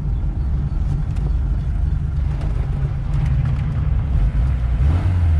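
A Lada Zhiguli's engine running as the car is driven, a steady low rumble that swells near the end, with scattered light clicks.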